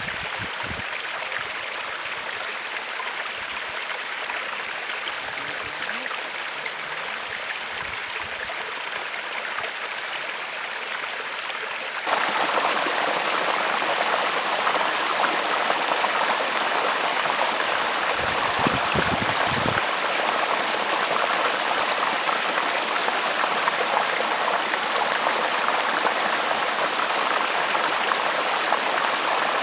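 Small mountain stream running steadily over rocks into shallow pools, a continuous rushing that turns louder and brighter about twelve seconds in.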